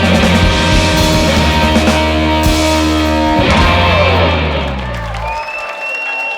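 Electric blues-rock band of two electric guitars, bass and drums playing the final bars of a song, ending on a held chord that rings out and fades. Near the end the audience starts whistling and applauding.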